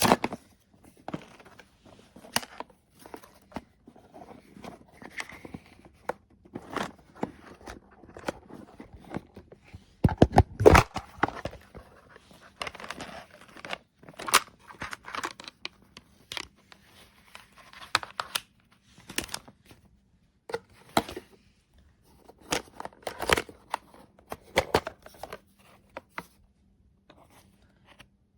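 Objects being handled up close: irregular clicks, rustling and crinkling, with a denser clatter of knocks about ten seconds in.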